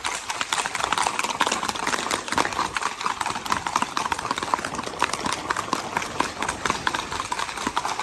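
Several horses' hooves clattering on a paved road, a fast, dense run of hoof strikes as the group of ridden horses moves along at a quick gait.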